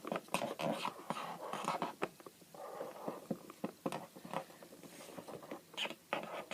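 Pens scribbling on paper in short, scratchy strokes, with irregular small taps and clicks.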